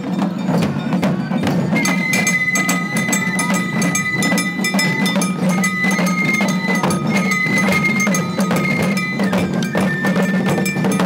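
Japanese festival hayashi of bamboo transverse flutes and hand-held drums marching past. The flutes come in about two seconds in, playing long held notes that step between pitches. The drums keep up a quick, steady, clacking beat underneath.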